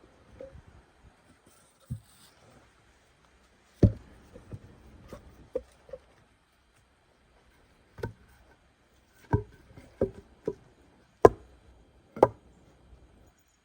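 A dozen or so sharp knocks at uneven intervals, the loudest about four seconds in and again near eleven seconds, some close together in quick pairs.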